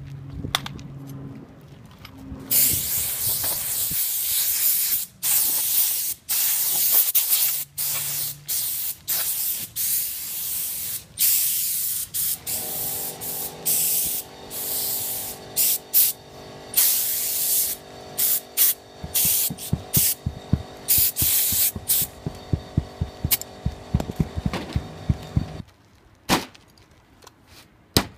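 Compressed air hissing from an air-hose tool in repeated bursts of a few seconds each. About halfway in a steady hum joins and runs until shortly before the end, with a series of sharp knocks over its last few seconds.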